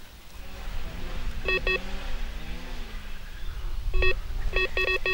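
Electronic carp bite alarms beeping: a pair of short beeps about a second and a half in, a single one at four seconds, then quickening beeps near the end, the sign of a fish pulling line off a rod.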